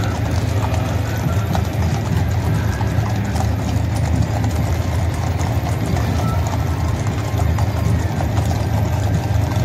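Hooves of many horses clip-clopping on an asphalt road as a mounted cavalry column walks past, a dense overlapping patter of steps. A steady low rumble runs underneath.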